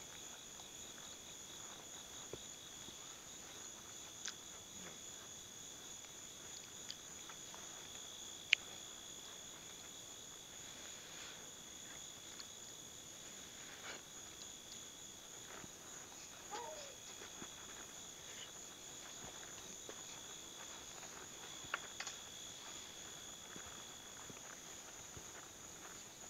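Chorus of night insects such as crickets, two steady pulsing trills at two pitches, one high and one lower. A few light clicks and taps come through now and then.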